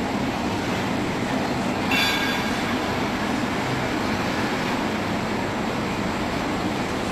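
Steady rumbling noise with a hiss, even throughout, and one brief high squeak about two seconds in.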